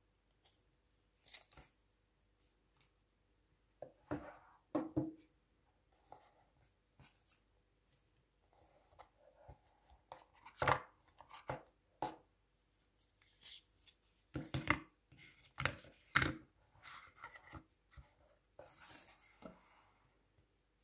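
Cardboard packaging being handled by hand: the box and its paper-pulp insert scraping and rustling, with scattered small taps and clicks as the plastic AirPods charging case is taken out and set down on the table. The sounds come irregularly, in short clusters.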